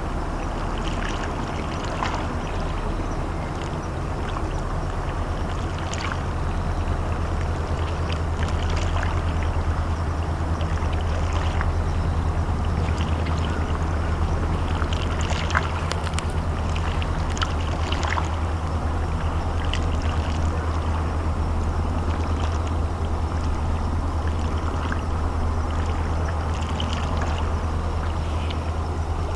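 Steady low engine drone of the YDT01 underwater disposal mother ship coming in under power, growing a little louder about seven seconds in, over a haze of water noise.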